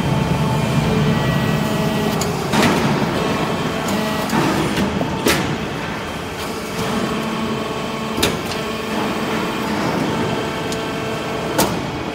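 Vertical hydraulic metal-chip briquetting press running: a steady hum from its hydraulic power unit, broken by a sharp metallic clank about every three seconds, four in all, as the press cycles and turns out briquettes.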